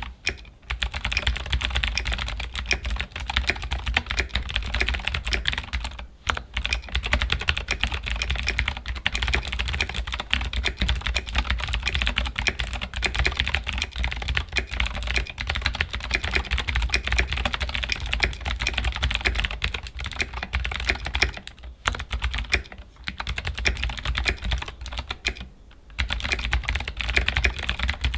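Keychron K8 Pro mechanical keyboard with clicky Gateron G Pro Blue switches being typed on quickly and continuously, a dense run of sharp key clicks broken by a few brief pauses.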